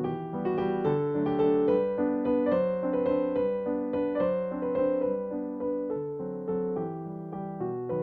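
Background piano music: a melody over sustained chords, with notes changing every half second or so.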